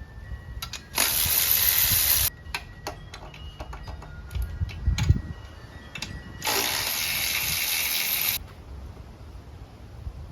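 Two long bursts of steady hissing spray, the first about a second long and the second about two seconds, with clicks and knocks of handling between them.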